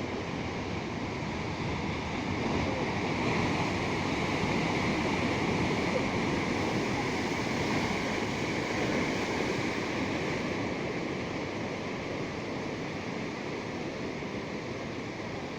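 Ocean surf: waves washing ashore as a continuous rushing hiss, swelling a couple of seconds in and easing off again after about ten seconds.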